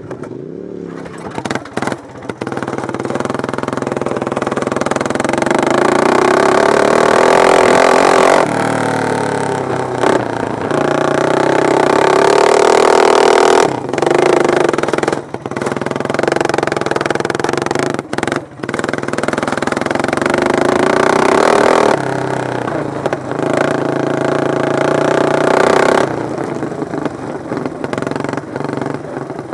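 Racing lawn mower engines at full throttle, the pitch climbing as they rev and falling away, with several sharp drops in between.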